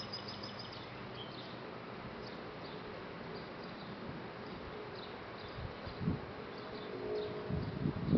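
Outdoor ambience: a steady hiss with scattered faint high chirps, and an insect buzzing close by that grows louder near the end, along with a few low bumps.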